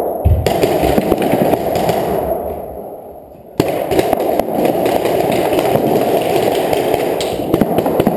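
Reball game in progress: paintball markers firing in a dense run of rapid pops and clatter, echoing around a gym hall. The sound fades, then cuts back in abruptly about three and a half seconds in.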